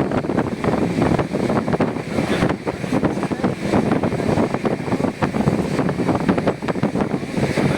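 Passenger train running at speed: a loud, steady rush of wind and the rumble of wheels on the track.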